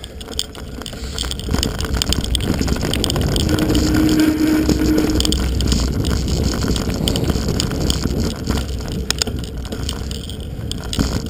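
Mountain bike riding over a dirt trail: tyres rolling on the dirt, the bike rattling with many small clicks, and a steady low rumble of wind on the microphone. A brief steady hum rises out of the noise about four seconds in.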